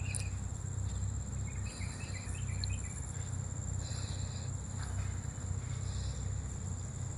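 Insects calling: a steady high-pitched drone, with a shorter buzzing call repeating every couple of seconds, over a steady low rumble.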